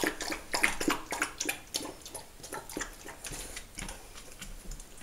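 Golden retriever puppy feeding at a stainless steel bowl: quick, irregular clicks and smacks of its mouth in the bowl, louder in the first couple of seconds, then fainter.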